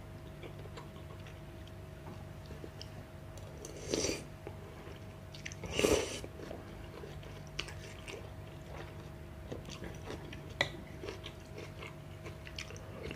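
A person eating instant noodles: two slurps about four and six seconds in, then quiet chewing with a few small clicks. A faint steady hum runs underneath.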